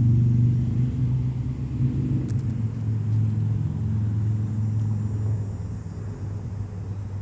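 Low, steady rumble of a running vehicle engine, easing off a little near the end.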